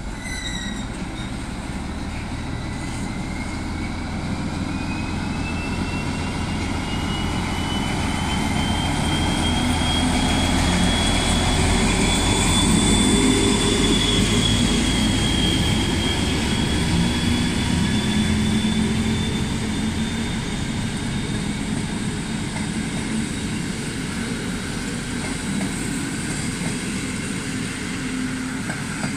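Czech-built 'Nurek' diesel-electric locomotive pulling a passenger train away from a standstill under power, its engine running with a whine that rises in pitch over the first dozen seconds. It is loudest as the locomotive passes, about 12 to 15 seconds in, then the carriages roll by with steady wheel and rail noise.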